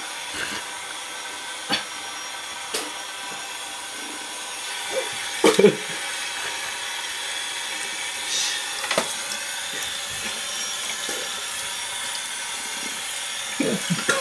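A man hiccuping, a few sharp hiccups spread out with the loudest about five and a half seconds in and a quick run of them near the end, over a steady hiss.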